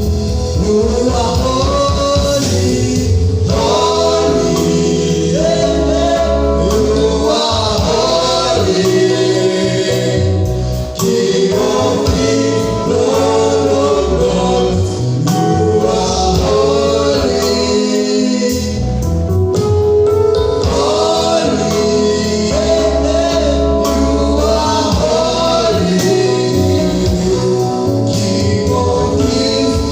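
Gospel worship song: a choir sings over instrumental backing with a deep bass line.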